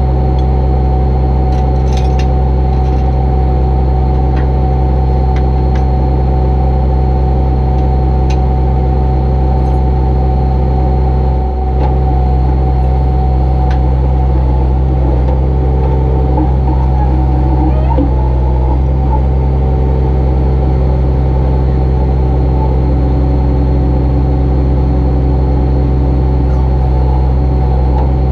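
A wrecker's engine runs steadily under a high, steady whine while the hydraulic wheel-lift raises the back of the pickup. A few light clicks come through early on the deck.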